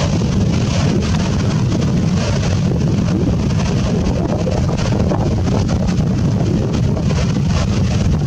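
Strong wind rumbling on the microphone, steady and unbroken, over the hiss of surf washing in on the beach.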